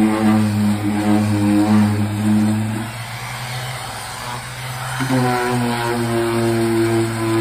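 Electric random orbital sander running steadily while wet-sanding fresh automotive paint with 1500-grit paper. About three seconds in it is lifted off the panel, and for about two seconds the sound thins and drops while the motor keeps humming. Then it is set back down and the fuller sanding sound returns.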